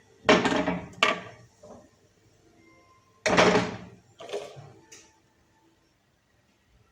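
Kitchen clatter: a series of sharp knocks and clanks of utensils and pans. The two loudest come just after the start and about three seconds in, and it falls quiet for the last second and a half.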